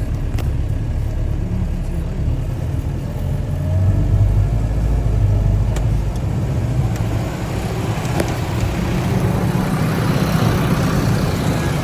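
Diesel engine of a JCB backhoe loader running steadily, its low note swelling about four seconds in.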